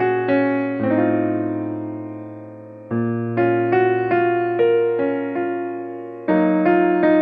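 Background music: a gentle piano melody with chords, notes struck and left to ring.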